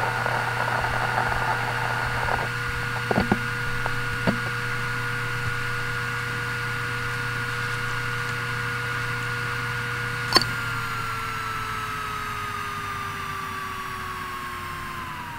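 Toshiba X300 Performance HDWR460 6TB 7200 rpm hard drive: crackly head-seek chatter of file access for the first couple of seconds, a few isolated clicks, then idling with a steady spindle whine and hum. About ten seconds in a single sharp click, and the whine begins to fall steadily in pitch as the platters spin down.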